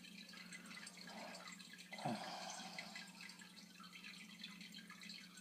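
Faint handling of trading cards, with small rustles and ticks and one soft click about two seconds in, over a steady low hum.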